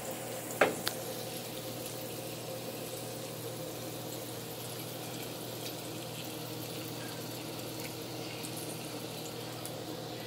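Shrimp, peppers and onions sizzling steadily in a frying pan, with two sharp taps a little over half a second in.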